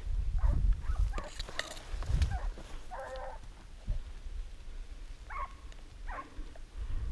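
Hunting dogs barking at a wild boar they are chasing: a handful of short calls spread a second or so apart. Wind rumbles on the microphone in gusts underneath.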